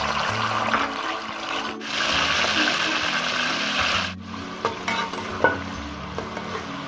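Chicken pieces sizzling steadily as they fry in hot ghee in a metal karahi. In the second half the sizzle is a little quieter, and a metal spatula clicks and scrapes against the pan a few times as the pieces are turned.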